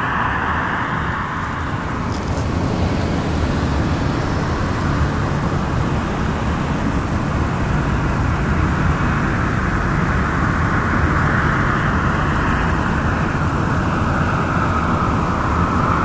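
Jet airliner engines running: a steady low rumble with a hiss that swells at the start, fades, then builds again toward the end.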